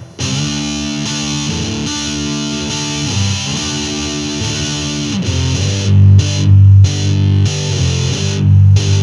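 Electric guitar played through a Musontek FurFur fuzz pedal, a discrete-circuit fuzz. Thick fuzzed chords are held for about five seconds, then a louder low riff comes in as chopped stabs with short gaps.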